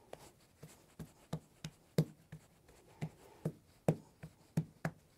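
Hands patting a lump of biscuit dough flat on a floured wooden board: a run of quick slaps, about three a second, uneven in strength.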